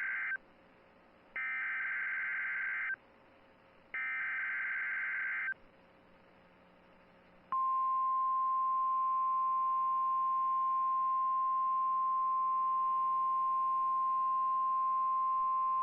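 NOAA Weather Radio Emergency Alert System header announcing a snow squall warning: the tail of one burst of warbling digital SAME data tones, then two more bursts, each about a second and a half with about a second's gap. About seven seconds in, the steady 1050 Hz warning alarm tone starts and holds.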